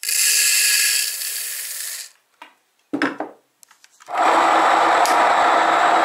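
Emmer wheat grains poured from a cup into the wooden hopper of a home grain mill, a dense rattling hiss for about two seconds. A short knock near the three-second mark, then about four seconds in the mill switches on and runs steadily, grinding the grain into flour.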